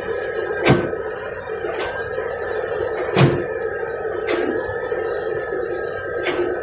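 Excavator's diesel engine running steadily, with several sharp metallic knocks at uneven intervals, the loudest about three seconds in.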